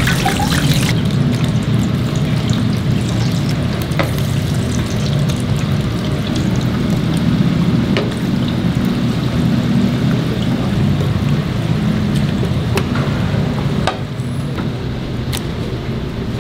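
Deep-frying at a street-food stall: a steady sizzle of food in hot oil over a low rumble, with a few sharp clicks of metal utensils.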